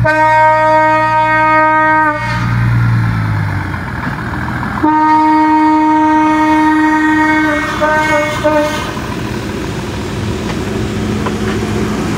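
Horn of PNR 8000-class diesel multiple unit 8002, sounding as it pulls away: a two-second blast, a pause, a longer blast of nearly three seconds, then two short toots. Under it, the low running of the train's diesel engines and the rumble of the cars rolling past close by.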